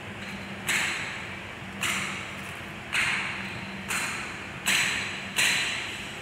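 Six sharp knocks, about one a second, each dying away over half a second.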